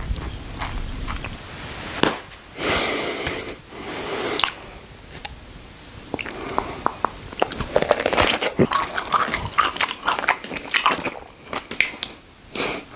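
Close-up biting and chewing of crunchy food: a string of sharp crunches and wet chews, busiest in the second half. There is a short burst of hissing noise about three seconds in.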